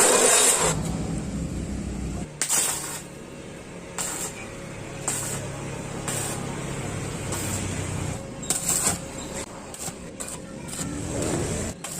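A small engine running steadily, with scattered sharp knocks and clicks; a loud hiss cuts off just after the start.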